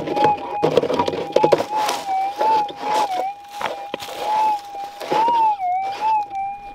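Metal detector's steady threshold hum, its pitch wobbling up and down a few times as the coil passes over a target, over the scraping and knocking of digging in gravelly ground.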